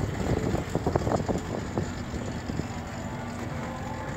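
Road noise from riding a pedicab along a street, with irregular clattering knocks in the first two seconds, then a steadier low hum.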